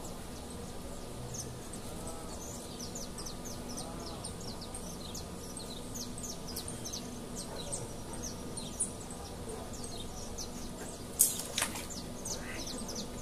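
Small birds chirping: many short, high, downward chirps, irregular and overlapping, over a steady low background. A sharp click stands out a little after eleven seconds in.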